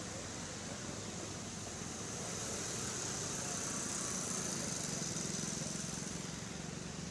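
Steady outdoor background noise: a low rumble of distant road traffic under a high hiss that swells in the middle and eases again.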